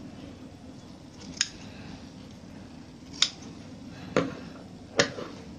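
Scissors snipping through fabric, four short sharp cuts at uneven intervals, trimming the seam allowances where strips of fabric are joined.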